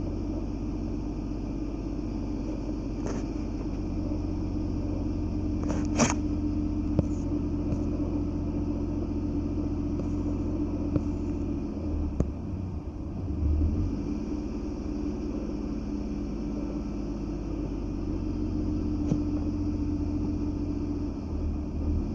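Steady low rumble with a droning hum, and a few short sharp clicks, the loudest about six seconds in.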